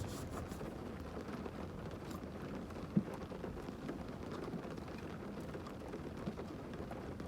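Heavy rain falling steadily on a car's roof and windows, heard from inside the cabin. Two brief soft knocks stand out, one at the start and one about three seconds in.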